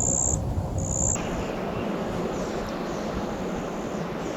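Insect calls outdoors, a high buzzing chirp repeating about once a second. About a second in they cut off abruptly and a steady rushing hiss takes over.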